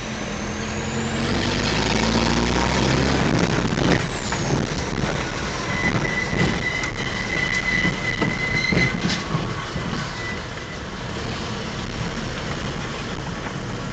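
Mitsubishi L200 pickup driving slowly along a rough, muddy lane, heard from inside the cab. The engine note rises and runs for the first three seconds or so. After that come tyre rumble and knocks and rattles over the bumps, with a thin high squeal held for a few seconds midway.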